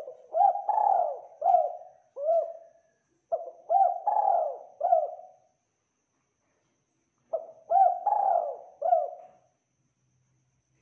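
Spotted dove cooing in three phrases of several low, rounded coos each, a couple of seconds apart.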